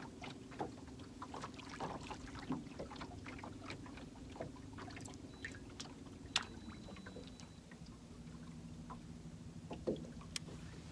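A boat motor hums steadily at trolling speed and drops to a lower pitch about seven seconds in, with scattered light clicks and knocks over it.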